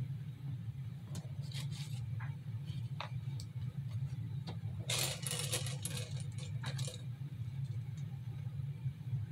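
Light clicks and a short burst of rattling and rustling about five seconds in, as small craft pearls and their packaging are handled, over a steady low hum.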